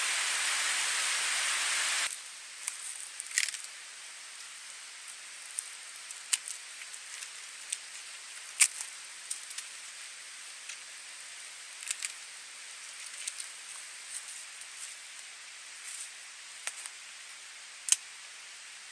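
Waterfall rushing for about the first two seconds, then a sudden change to a quiet background with irregular sharp cracks and snaps of dry dead wood and bark being broken off by gloved hands, a few louder snaps standing out.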